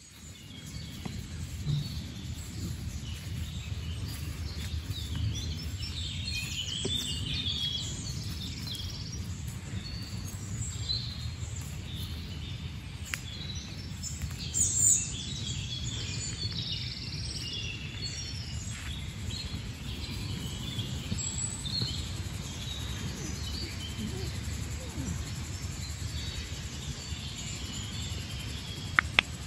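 Outdoor ambience of small birds chirping and calling among trees, over a steady low rumble; one louder high call stands out about halfway through.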